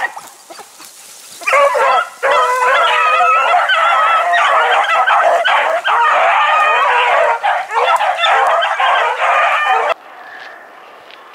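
A pack of beagles giving tongue together, many overlapping bays and chops, as hounds in full cry on a rabbit's scent. The cry starts about a second and a half in and cuts off suddenly near the end.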